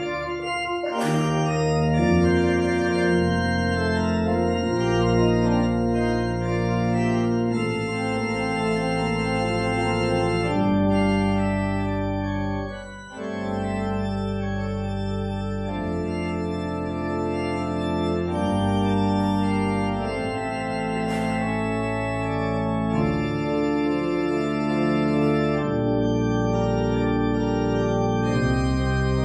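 Organ playing slow, sustained chords that change every second or two, with a short break about thirteen seconds in.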